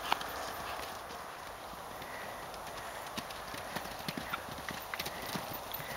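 Hooves of a cantering skewbald cob on grass turf, soft irregular thuds over a steady background hiss, with a few more distinct hoof strikes in the second half as the horse comes in to a log jump.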